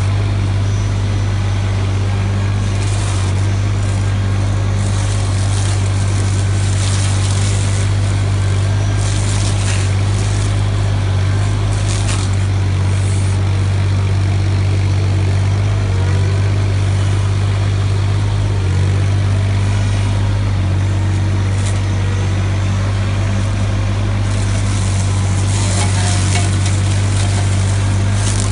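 Mini excavator engine and hydraulic flail mower head running with a steady drone as the spinning flails cut into a hedge. Short bursts of crackling and rattling from branches being shredded come several times, thickest near the end.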